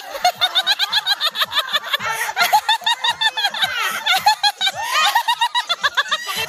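Laughter in quick repeated bursts, several a second, going on without a break.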